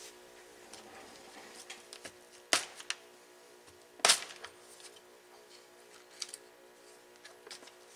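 Two sharp plastic clicks about a second and a half apart, with lighter ticks and rattles around them: a clear plastic parts storage box being opened and handled.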